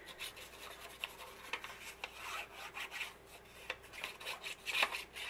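Paper being handled by hand: a run of short rustles and scrapes with a few light clicks, loudest a little before the end.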